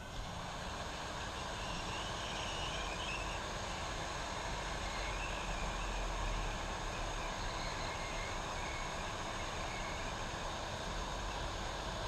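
Handheld hot air rework gun blowing steadily, a constant rushing of fan and air, as it heats the flight controller's CPU to desolder it from the board.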